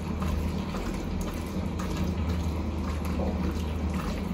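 Pot of water at a steady boil with spaghetti cooking in it, with faint wet squishes of raw shrimp being mixed by hand.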